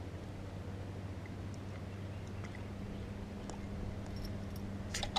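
Quiet outdoor ambience with a steady low hum, then a few sharp clicks and knocks near the end as the chest-mounted GoPro in its loose mount is handled.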